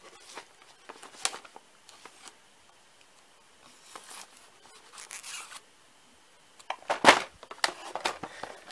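A cardboard toy box being handled and worked open by hand: scattered rubbing and scraping of cardboard, with a sharp, loud crackle about seven seconds in and several smaller ones after it.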